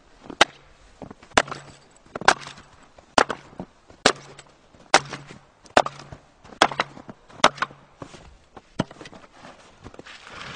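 An axe chops repeatedly into a log standing upright on a chopping block, splitting it into pieces inside a chain ring that holds the splits together. About ten sharp chops come roughly one a second, each followed by a short dull thud from the block.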